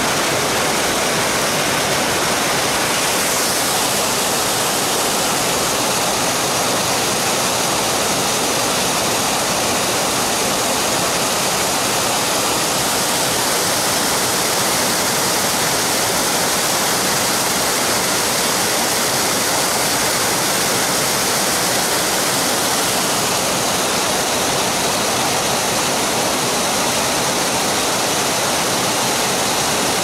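Small river waterfall and rapids: white water pouring steadily over rocks in an unbroken rush.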